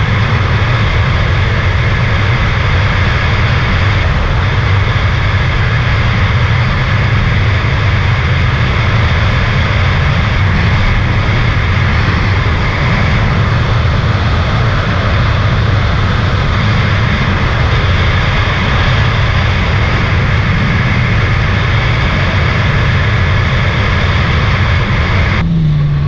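Supercharged 2018 Sea-Doo RXT-X 300 personal watercraft running steadily at speed, its engine and Riva Racing free-flow exhaust loud under a constant rush of noise.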